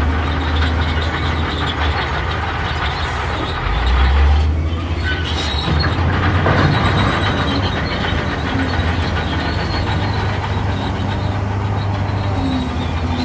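Crawler bulldozer (Shantui D31P) working. Its diesel engine drones steadily, swelling briefly about four seconds in, over the continuous clatter and thin squeal of the steel tracks.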